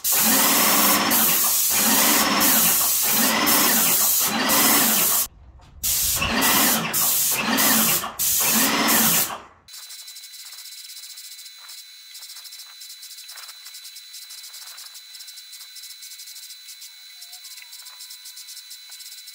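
Wagner Control Pro 250R airless paint sprayer running while the gun sprays: a loud hiss with the pump pulsing about once a second. It stops briefly about five seconds in, then resumes with a faster pulse. About ten seconds in it drops abruptly to a much fainter hiss with light ticks and a thin steady high tone.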